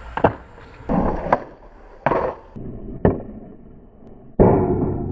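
Skateboard tricks on concrete: several sharp clacks of the board popping and landing, with bursts of wheel roll in between. About four seconds in, a longer grind along a metal rail starts suddenly and fades slowly.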